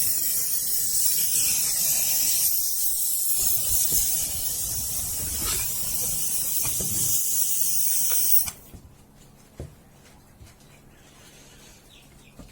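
Steady, loud hiss of gas or air jetting under pressure, which cuts off suddenly about eight and a half seconds in, leaving a few faint knocks.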